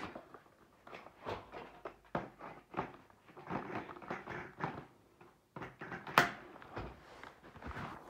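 Irregular plastic knocks and clicks of a Dyson V8 cordless vacuum being handled while its cleaner head is swapped, with one sharp click about six seconds in.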